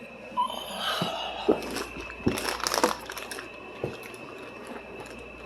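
Rustling and handling noise with several sharp clicks and knocks, busiest in the middle, over a faint steady high-pitched whine.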